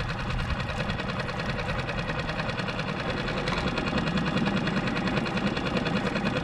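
Small outboard motor on a micro skiff idling steadily, with a fast, even pulse.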